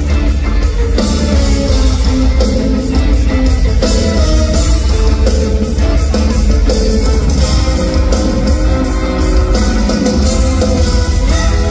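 Live rock band playing loudly: electric guitar to the fore over drums and a heavy bass, with a steady beat throughout.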